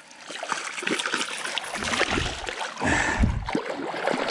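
Shallow creek water sloshing and splashing close to the microphone as it is stirred by someone moving through it, with two stronger low surges about two and three seconds in.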